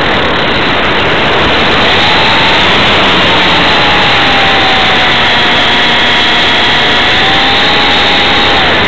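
Radio-controlled model plane's motor and propeller heard from an onboard camera, a thin whine that rises about two seconds in, slowly sags and drops away near the end, under a loud, steady rush of wind over the microphone.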